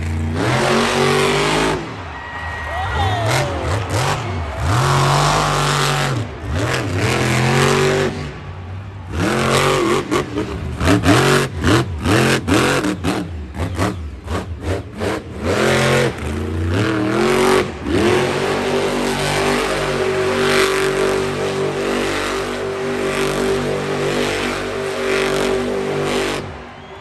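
Monster truck's supercharged V8 engine revving hard through a freestyle run: pitch swinging up and down, then rapid on-off throttle blips in the middle. For the last several seconds it holds a steady high pitch, then drops away just before the end.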